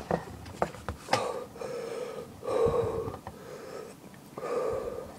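A man breathing heavily in and out, about three long wheezy breaths with a few small mouth clicks, as he suffers the burn of a superhot Brain Strain chili pepper.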